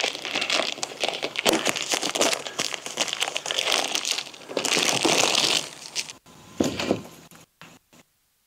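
A roll of 1-inch wire hardware cloth being handled and unrolled: the mesh crackles and rattles for several seconds, thinning to a few scattered clicks near the end.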